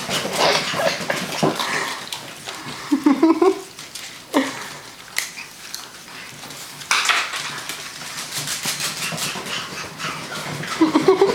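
Six-week-old puppies' claws pattering and clicking on a hard floor as they run, in quick irregular clusters that are densest in the middle. A brief voice-like sound cuts in about three seconds in and again near the end.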